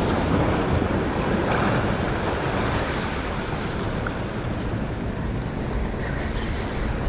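Wind buffeting the microphone over the steady wash of waves against a rock breakwall.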